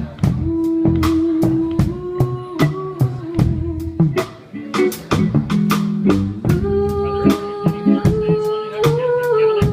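Live band playing at a sound check: a drum kit keeps a steady beat under held melody notes that step from pitch to pitch and bend upward near the end.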